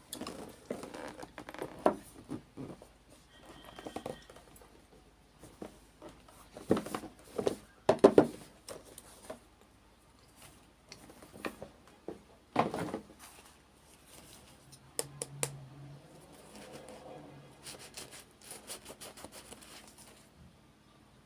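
Hands unboxing miniature toys: irregular clicks and taps of small plastic pieces and packaging, with crinkling of the wrapping. The loudest clacks come about a third of the way in, and a quick run of crinkles comes near the end.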